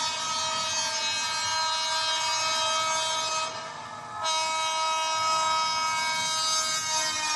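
Japanese train horn sounding a long held chord of several tones. It dips briefly about three and a half seconds in, then sounds again for about three more seconds.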